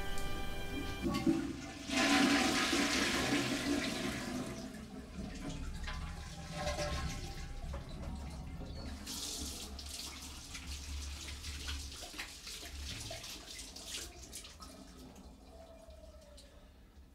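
Toilet flushing: a click, then a loud rush of water about two seconds in that slowly fades away over many seconds.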